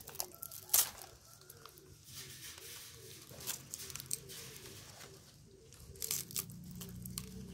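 Scattered crackles and tearing rustles of coconut husk and stalks as a monkey picks at opened coconuts, sharpest about a second in. A bird calls softly over and over in the background.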